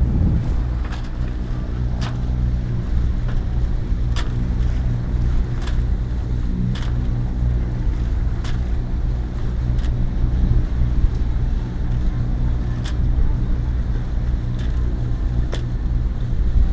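A catamaran's engine drones steadily as the boat motors along, with wind buffeting the microphone and a few short sharp clicks scattered through.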